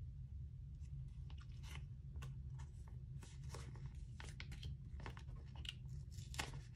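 Faint crinkling of clear plastic binder pocket sleeves as photocards are slid into and out of them, heard as a scatter of small irregular clicks and rustles.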